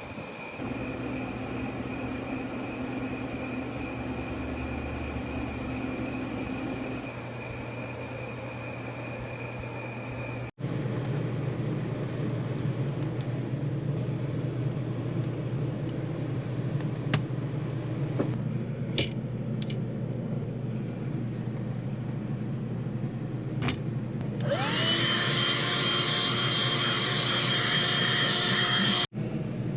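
A 15,000 BTU air conditioner running with a steady fan noise and low hum. Near the end a higher motor whine rises quickly and then holds steady over it.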